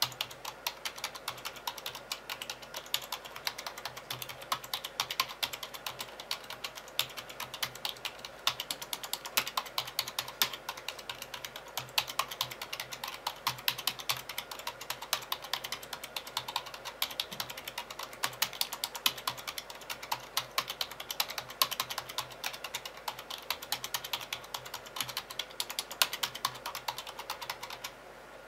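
Fast continuous typing on a Rosewill RK-9000 mechanical keyboard with Cherry MX Blue switches: a dense stream of sharp key clicks.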